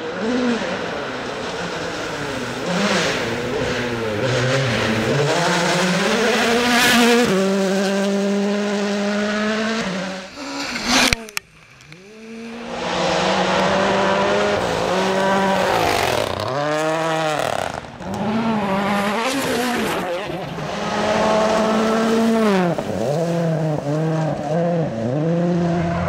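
World Rally Cars' turbocharged four-cylinder engines at full throttle on a gravel stage: first a Hyundai i20 WRC revving hard and shifting up through the gears, then, after a short break near the middle, a Mini WRC with repeated quick rises and drops in revs as the driver lifts and gets back on the throttle for the corners.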